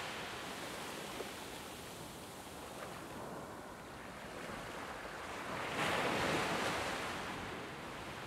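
Sea surf washing onto a beach, with one wave swelling louder about six seconds in and then fading.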